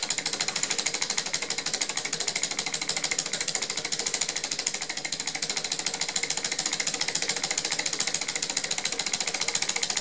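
Small 3D-printed Stirling engine with glass syringe pistons running at speed under a spirit-lamp flame, its mechanism clicking in a rapid, even rhythm.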